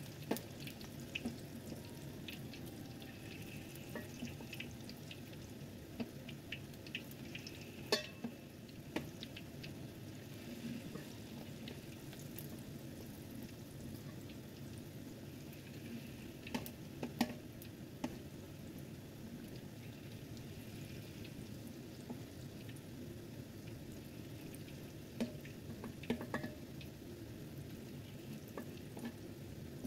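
Batter-coated cauliflower florets deep-frying in hot oil in a wok: a steady bubbling sizzle, broken by a few short sharp clicks.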